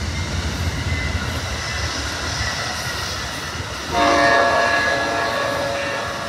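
Amtrak passenger train rolling past, its bilevel cars' wheels rumbling steadily on the rails. About four seconds in, a loud multi-note horn chord from the locomotive sounds, then fades as the engines pull away.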